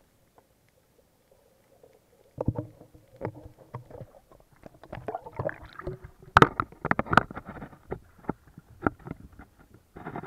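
A camera in a waterproof housing lifted out of the sea beside a boat. Muffled near-quiet at first, then from about two seconds in an irregular run of sharp knocks, bumps and splashes as it breaks the surface and is handled against the hull.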